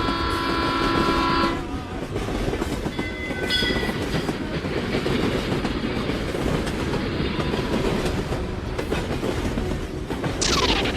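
Train running with a continuous rumble and rail clatter. A multi-tone train horn sounds for about the first second and a half, and a shorter horn blast follows about three and a half seconds in.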